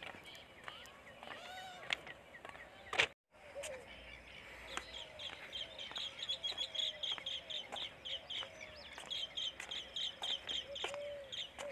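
Birds calling and chirping, with a fast run of repeated high chirps, three or four a second, from about 4 seconds in to near the end. A sharp click about 3 seconds in is followed by a brief dropout to silence.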